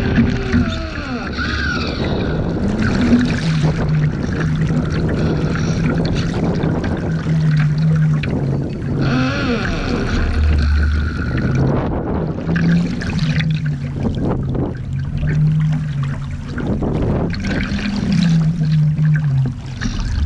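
Water rushing and splashing against the hull of a radio-controlled Laser model yacht, heard close up from a deck-mounted camera, with wind buffeting the microphone. A low hum that shifts up and down in pitch runs underneath.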